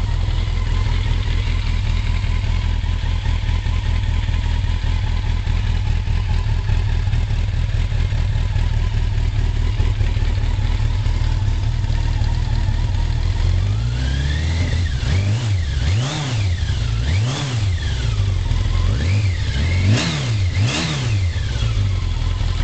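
1985 Yamaha FZ750's inline-four engine, warmed up with the choke off, idling steadily and then revved in a run of about six quick throttle blips starting about two-thirds of the way in, each rising and falling in pitch.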